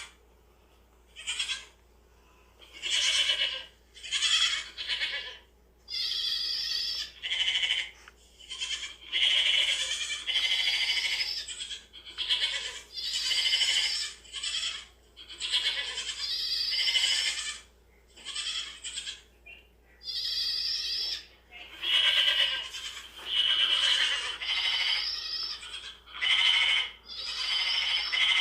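Goats bleating, one call after another about every second or two, some calls long and wavering, with brief pauses between them.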